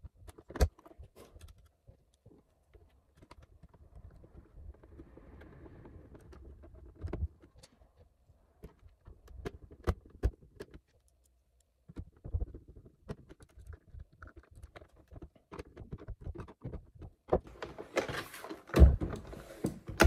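Scattered plastic clicks, knocks and rattles as the wheel module and parts of a Vileda VR302 robot vacuum are handled and fitted back into its housing. Near the end a louder rustle and thumps as the robot is turned over onto the table.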